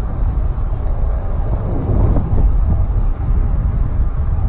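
Wind buffeting a camera microphone on a moving electric bike: a heavy, uneven low rumble.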